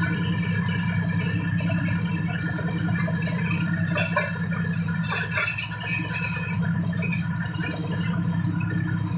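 Small stationary engine powering a well-drilling rig, running steadily with a fast low pulse. Irregular clattering from the belts, pulleys and steel frame rides on top.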